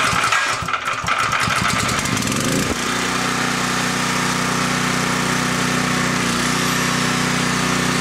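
Briggs & Stratton 5,000-watt generator engine starting on the first pull with the choke on, firing unevenly for a couple of seconds, then settling into a steady run about three seconds in. It now keeps running on its own, after a carburetor clean for a fault where it ran only on a prime and then died.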